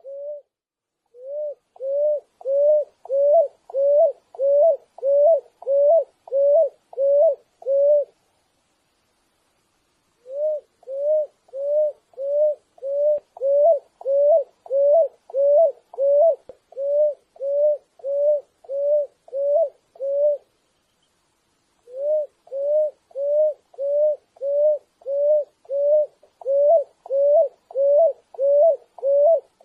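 Picui ground dove singing: a long series of short, low cooing notes, about two a second, each with a slight upward hook. The runs break off briefly twice before starting again.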